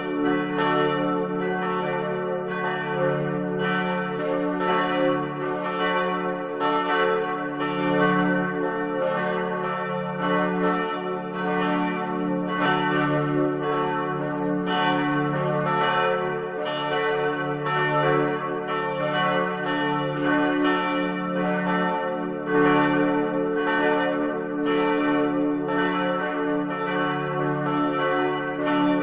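Church bells ringing, struck again and again in a steady, quick succession, each stroke ringing on into the next.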